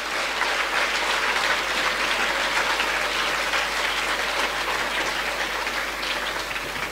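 A large audience of schoolchildren clapping in sustained applause, a dense steady patter that tapers off near the end.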